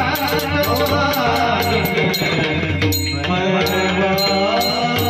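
Marathi devotional bhajan: a singing voice over pakhawaj drum, with sharp high clicking strokes keeping a steady beat.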